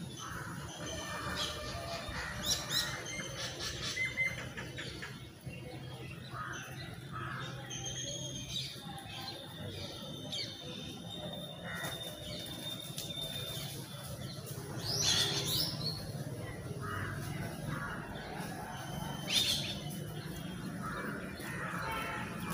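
Outdoor ambience with birds chirping now and then, short high calls scattered through, over a steady low background hum.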